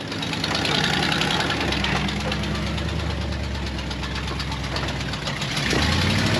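Off-road vehicle's engine running under load as it crawls up a rock ledge, revs rising near the end.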